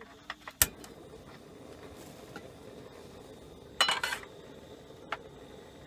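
Cookware and utensils clinking and knocking during camp cooking: one sharp knock about half a second in, a few lighter clicks, and a short clatter near four seconds, over a steady low hiss.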